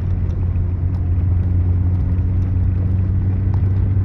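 A 1999 Toyota Tacoma pickup driving steadily through fresh snow while towing a loaded trailer: a constant low engine drone, with faint scattered ticks.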